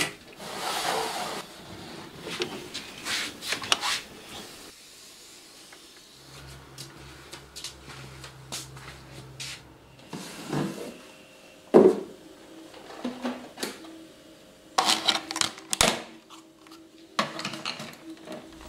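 Rummaging in a wooden cupboard and handling household objects: rustling and rubbing, then a scattered run of knocks and clicks, the sharpest about two-thirds of the way through.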